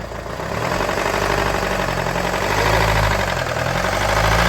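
Mercedes-Benz E250 engine being given light revs, its pitch rising and falling as the throttle is blipped. It runs unevenly, hunting, which the mechanic puts down to a seized piston.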